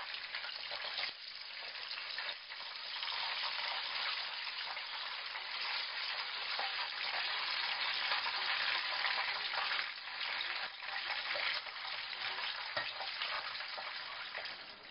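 Chicken legs frying in hot oil in a nonstick wok: a steady sizzle.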